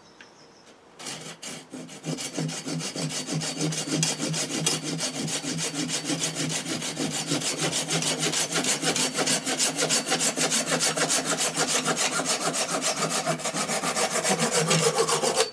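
Hand saw with coarse teeth cutting through a piece of green birch. A steady run of back-and-forth sawing strokes begins about a second in.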